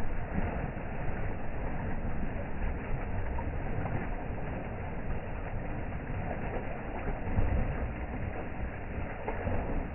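Water gushing up out of a buried irrigation pipe outlet, making a steady rushing and bubbling as it boils up over the ground.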